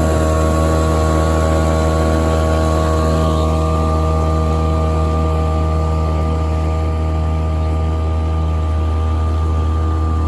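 Mercury 3.3 hp outboard motor running steadily under way, pushing a jon boat, with an even engine drone that neither rises nor falls. It is running well now that the fuel tank cap has been loosened to get round a stopped-up vent.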